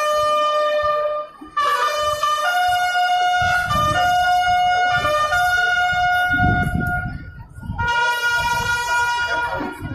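Wind instruments playing a slow melody in long held notes, in phrases separated by brief pauses, with a low rumble beneath it in the middle.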